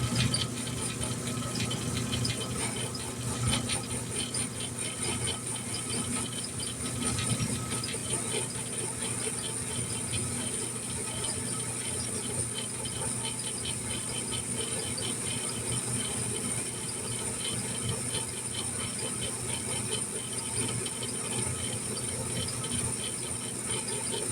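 Antique metal lathe running as it cuts hard metal: a steady hum and high whine with a continuous irregular rattle.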